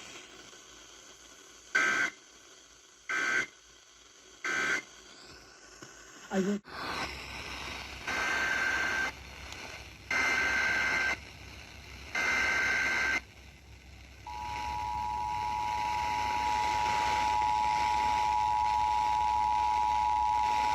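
Emergency Alert System (EAS) tones over broadcast radio. First come three short buzzy SAME data bursts that mark the end of the previous message. After a click come three longer SAME header bursts that open the next alert. About two-thirds of the way through, the steady two-tone EAS attention signal begins and holds.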